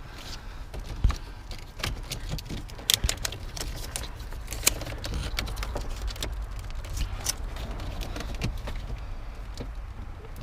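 Scattered clicks, taps and a light jangle of keys as ignition wiring and connectors under a car's dashboard are handled, with a few sharper knocks; the engine is not running.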